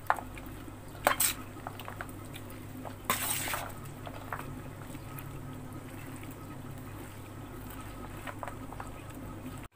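Slotted metal spoon tossing wet chickpea-and-vegetable chaat, coated in tamarind pulp, in a stainless-steel bowl: soft wet stirring with sharp clinks of spoon on steel near the start and about a second in. A steady low hum runs underneath.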